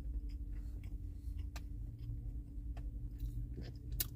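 Mouth noises of a person chewing a soft biscuit: small irregular clicks and smacks, with one sharper click near the end. A steady low hum runs underneath.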